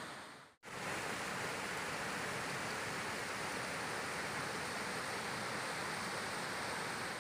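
Pampa river water rushing steadily over shallow rapids and flood debris, a continuous rushing noise. It cuts out for an instant about half a second in, then resumes.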